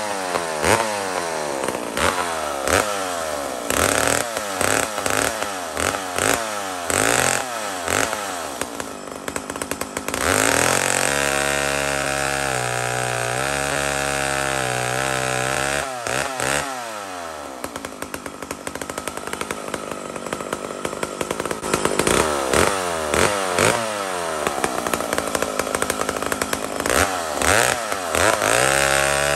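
McCulloch Mac 125 SP two-stroke chainsaw revving up and down again and again as it works in a big log. About ten seconds in it holds a steady, lower note under load in the cut for several seconds, then goes back to revving near the end. The carburettor is being tuned in the wood on the saw's first run, from a setting that was running fat and rich.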